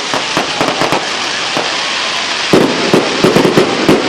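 Fireworks going off: a continuous crackling, sharp bangs throughout, and a rapid run of loud bangs in the last second and a half.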